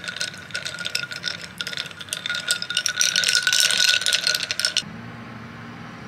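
Ice cubes clinking and rattling against a drinking glass as iced coffee is stirred with a straw, over a steady ringing tone from the glass. The clinking stops abruptly about five seconds in, leaving a low hum.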